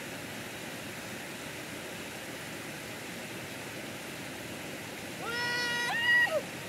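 Steady rush of a thin sheet of water running down a concrete spillway slope. Near the end a person lets out a long, high-pitched whoop that holds, rises and then drops away.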